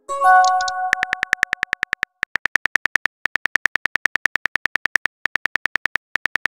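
A short electronic chime of a few notes as a chat message pops in, followed by the text-messaging app's keyboard clicks: quick, even taps at about ten a second with short pauses as a message is typed out letter by letter.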